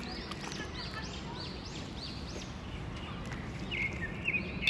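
A bird calling: a quick run of about seven high notes, each rising and falling, about three a second, then a few shorter, lower calls near the end, over a steady low background rumble.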